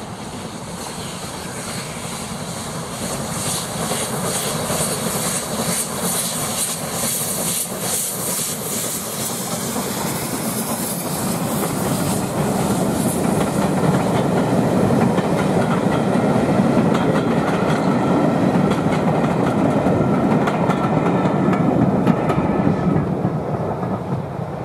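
Two steam locomotives double-heading a passenger train past, working hard with a quick run of beats, then the coaches rolling by with wheels clattering on the rails. The clatter is loudest in the later part and drops away near the end.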